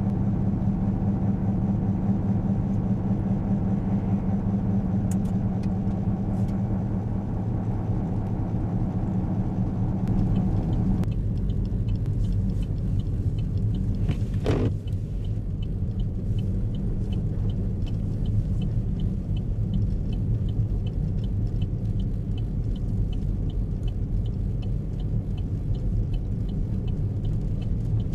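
Car driving on a snowy road: a steady low rumble of engine and road noise. About halfway through, a brief sharp sound, followed by faint regular ticking.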